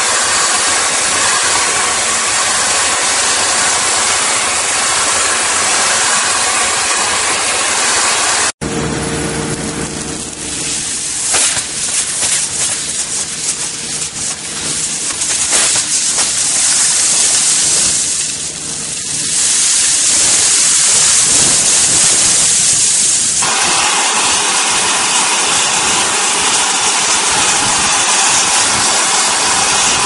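IVAC industrial vacuum system sucking wet gravel and sand up its hose, a loud steady rushing hiss of air and material. The sound cuts out briefly about a third of the way in and comes back rougher and more uneven with a low hum under it. It changes abruptly again about three quarters of the way through.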